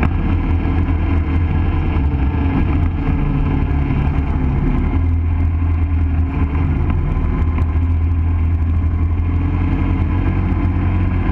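ATV engine running steadily as the quad travels along a dirt trail, heard close up from the machine itself, with a strong low hum and small rises and falls in pitch as the throttle changes.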